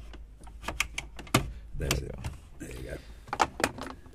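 Plastic clicks and knocks from a Land Rover Discovery 2 heater control panel being prised out of the dash with a thin blade, its side retaining clips letting go and the panel shifting in its housing. Sharp clicks come irregularly, the loudest about a third of the way in and another pair past the middle, with scraping and rustling between them.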